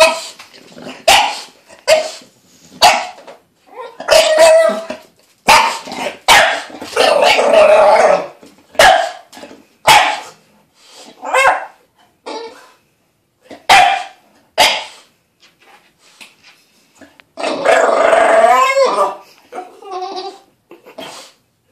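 Bulldog puppy fussing in protest at her bath: many short, sharp barks and yaps, broken by three longer, wavering complaining calls.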